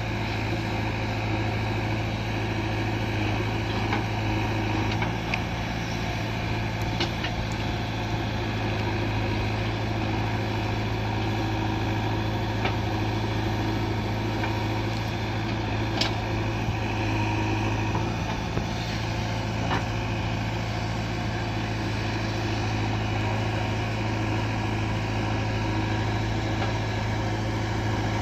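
Diesel engines of a backhoe loader and farm tractors running steadily, with a few sharp knocks now and then.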